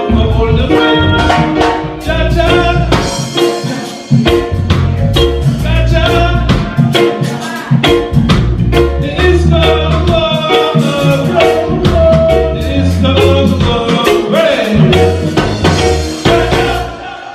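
Live roots reggae band playing an instrumental passage, with a heavy bass line and drum kit hits; the music drops away near the end.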